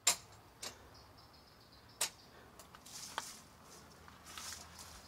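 A few sharp clicks or knocks at irregular intervals, the first the loudest, with a couple of short scuffing hisses between them.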